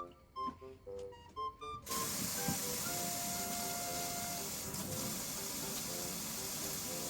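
Light background music with plucked or blown melodic notes; about two seconds in, a steady loud hiss begins and continues under the music.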